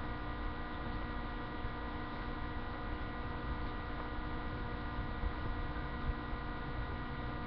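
Steady electrical hum with a layer of hiss, picked up by a webcam's microphone.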